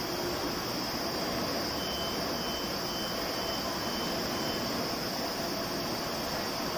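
Steady mechanical hum and hiss from a flexo printing press, with a run of about six short, evenly spaced high beeps from its control panel starting a couple of seconds in.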